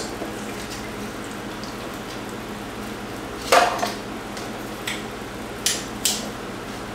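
Metal kitchen tongs clattering against a non-stick air fryer basket while steaks are turned: one loud clack about halfway through, then three lighter clicks, over a steady low hiss.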